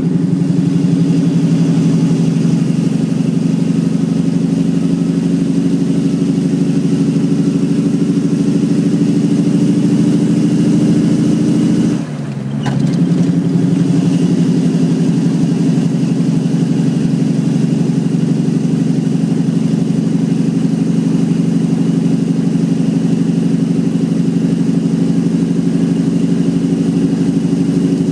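Cummins ISX diesel of a Western Star truck on its Jake (compression) engine brake, giving a loud, steady, rapid-fire bark heard from inside the cab. About twelve seconds in, the engine brake drops out for under a second, then comes straight back on.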